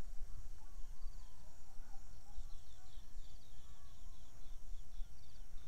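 Small birds calling in a field: a quick series of short, high chirps, about three a second, with a few fainter whistled notes, over a steady high insect drone and a low rumble.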